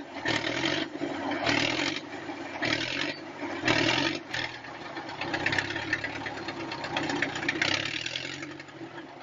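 Heavy machine's engine running under load, with loud surges of noise coming roughly once a second over a steady low drone.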